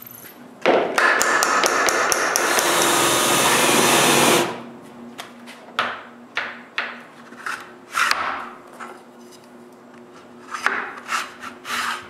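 Cordless drill running into a wooden part for about four seconds, then stopping. After it, a series of light wooden knocks and clatters as wooden tripod legs are handled and fitted together.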